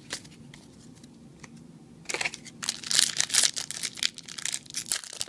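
Foil trading-card booster pack wrapper crinkling as it is handled and torn open, starting about two seconds in after a few soft clicks.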